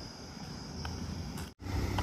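Roadside outdoor ambience with a steady high-pitched hiss, then, after an abrupt cut about one and a half seconds in, a louder low rumble of a vehicle engine.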